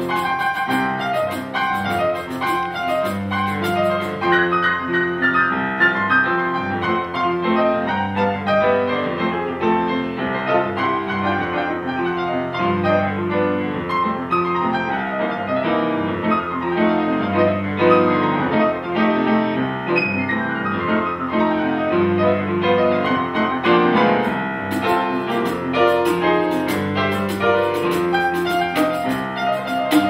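Jazz played on grand piano: chords and a busy melody over a repeating low bass figure. A fast, crisp high ticking joins in during the first few seconds and again from about 24 seconds.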